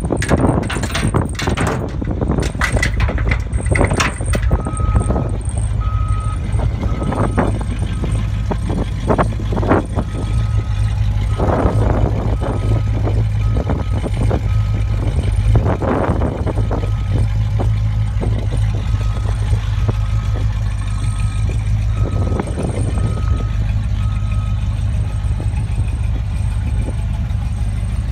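1957 Chevrolet pickup engine idling steadily with a low hum. From about four seconds in until a few seconds before the end, a high electronic beep repeats about every two-thirds of a second, like a reversing alarm. A few sharp knocks and handling noises come in the first four seconds.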